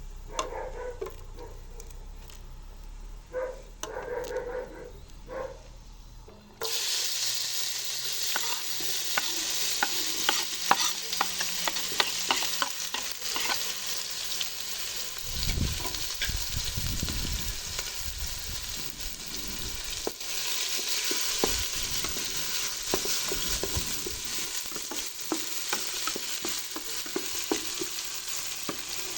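Eggplant frying in hot oil in a pan, sizzling steadily, with the clicks and scrapes of a utensil stirring it. About six seconds in it cuts in abruptly after a quieter stretch with a few short faint sounds.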